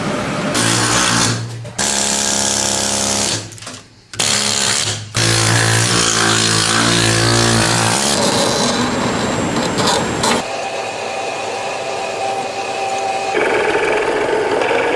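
A shoe-repair workshop machine's electric motor running in two spells of about three seconds, with a brief stop between them, then a lower, steadier whirring.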